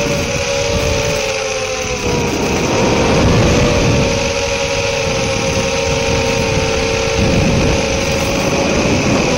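Small FPV quadcopter's brushless motors whining steadily in cruising flight, the pitch dipping slightly about two seconds in and then holding level, over a rushing hiss and low wind rumble.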